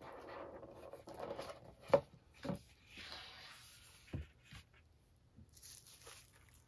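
Cardboard box lid being slid up off its base with a soft scraping rub, followed by a sharp knock about two seconds in and a few lighter taps and rustles as the lid is set down and the contents are handled.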